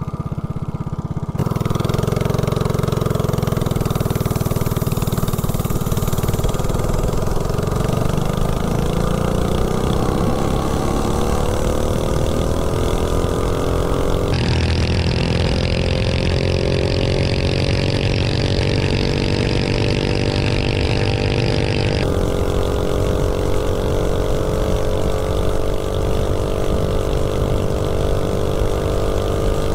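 Coleman CC100X mini bike's 179cc LCT snowblower engine, running without a head gasket, opened to full throttle about a second and a half in. Its revs climb steadily for several seconds as the bike accelerates from a standstill, then hold steady at top speed.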